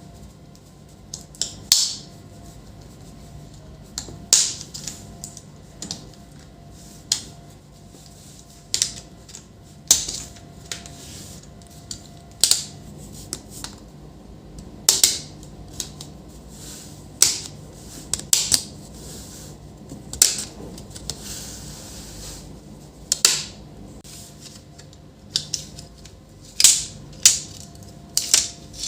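Irregular sharp plastic clicks and snaps with a few short scrapes, spaced a second or two apart: a laptop's plastic casing and parts being pried open and handled during disassembly.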